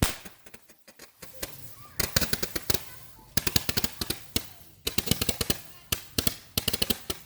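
String of firecrackers going off: one sharp crack, then dense runs of rapid, irregular popping in bursts from about two seconds in.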